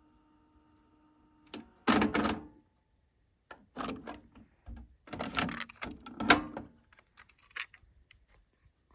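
Sony TC-WE475 dual cassette deck being operated: a faint hum stops with a click about a second and a half in, followed by a series of mechanical clicks and clunks from its buttons, cassette doors and tape transport, the loudest clunk about six seconds in.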